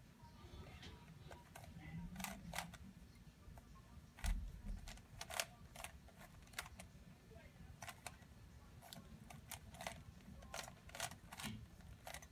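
Rubik's cube clicking as its layers are turned: quick, irregular runs of sharp plastic clicks, with a dull thump about four seconds in.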